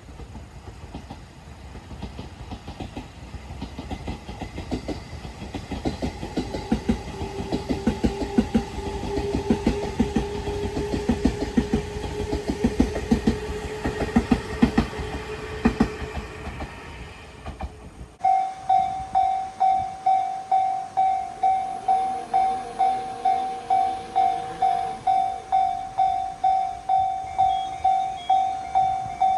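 An electric train passing close by, its wheels clacking rapidly over rail joints under a steady whine. About two-thirds of the way through it cuts to a Japanese level-crossing warning bell ringing "kan-kan" about twice a second.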